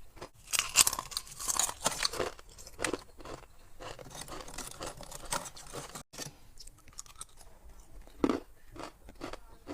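A person biting and chewing clear ice cubes from a humidifier-style ice tray. Loud, crackly crunches for the first few seconds give way to quieter chewing, with one more sharp crunch near the end.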